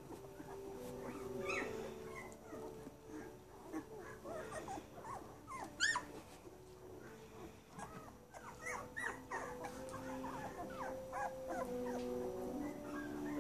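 Two-week-old Aussiedoodle puppies squeaking and whimpering: many short high squeaks overlapping with longer, held whines. One sharper rising squeal comes about halfway through.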